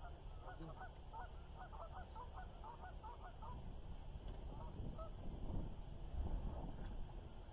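Geese honking: a quick run of short calls for about three seconds, then a few more around five seconds in.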